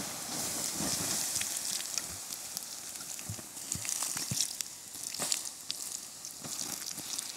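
Water poured from a bottle onto the hot ash and embers of a campfire to put it out, hissing and sizzling, loudest in the first second or two. Sharp crackles and pops come through it.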